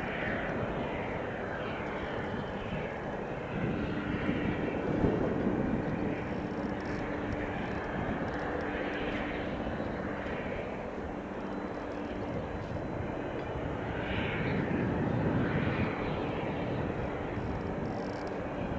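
Cessna 172 Skyhawk's single piston engine and propeller running, a steady hum over a rushing noise that swells and eases as the plane moves.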